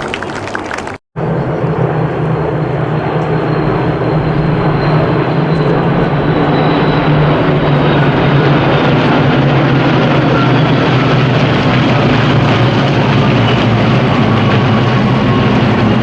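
A large formation of Spitfires and Hurricanes droning overhead: the steady, deep, even drone of many V12 piston aero engines together, starting about a second in and growing a little louder.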